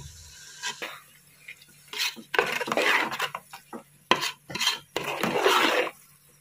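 A steel spoon stirring a thick flour-and-milk mixture in a metal cooking pot, clinking against the pot's sides and scraping along its bottom. There are scattered knocks, with two longer scraping strokes near the middle and towards the end.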